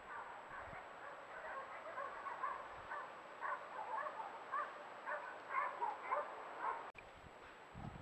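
Many short animal calls overlapping, several a second, cutting off suddenly about seven seconds in. A soft low thump follows near the end.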